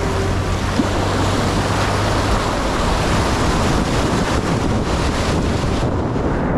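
A vehicle ploughing through deep floodwater, with a steady loud rush and splash of water against the body.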